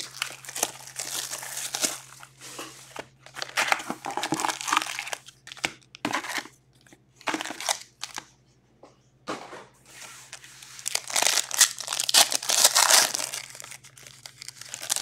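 Foil trading-card pack wrappers crinkling and rustling in irregular bursts as packs are handled and pulled from a cardboard hobby box. The crinkling is loudest in the last few seconds, as a pack wrapper is torn open.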